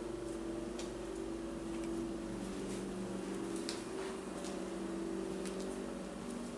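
Steady mechanical hum of a running household machine, with a few faint scattered clicks.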